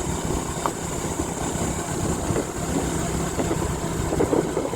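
Motorcycle engine running steadily with a low, even hum under rumbling road noise.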